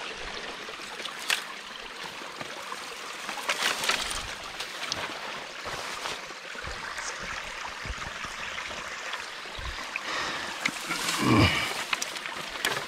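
Steady rush of running stream water, with a few scattered knocks and rustles and a louder brief sound near the end.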